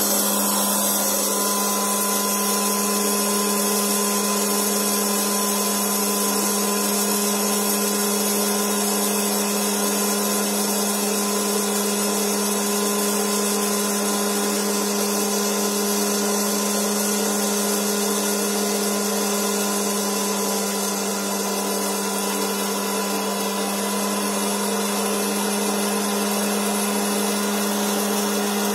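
Hot-air popcorn popper's blower fan running steadily: a constant hum with a rush of air. The kernels are still heating and have not yet begun to pop.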